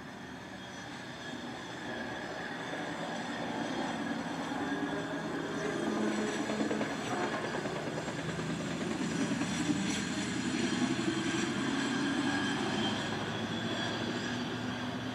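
Hi-rail track inspection truck rolling along the rails, a steady rumble of wheels on steel rail with several steady high tones over it. It swells, is loudest a little past the middle, and then fades.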